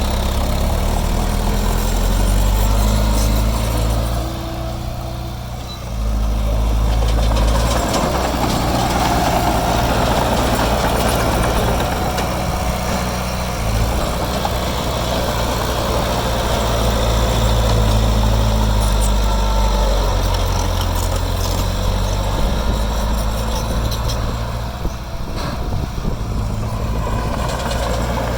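Heavy diesel engine of earthmoving machinery running steadily, its sound dropping briefly twice: about four seconds in and again near the end.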